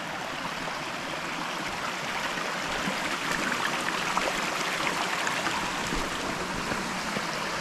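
Rushing water of a small waterfall by the trail, a steady hiss that grows slightly louder.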